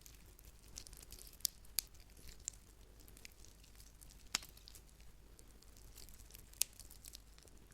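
Bone-cracking sound effect: sparse, irregular sharp cracks and light crackles. The loudest snaps come about a second and a half in, just before two seconds, past four seconds, and past six and a half seconds.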